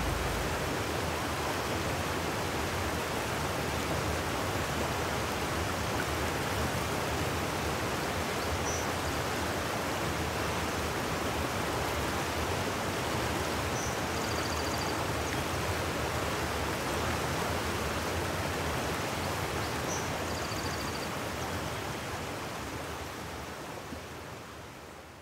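Fast-flowing creek rushing over rocks: a steady hiss of running water, with a few faint high chirps around the middle, fading out near the end.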